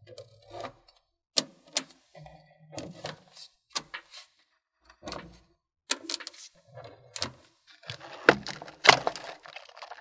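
Small magnetic metal balls clicking and clacking together as sections are pressed and snapped onto a model, in scattered sharp clicks with short rattles, the loudest near the end.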